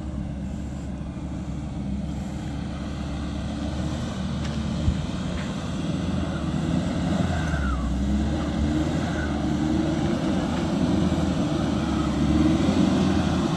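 Off-road vehicle's engine running steadily under load on a dirt climb, growing gradually louder, with one sharp knock about five seconds in.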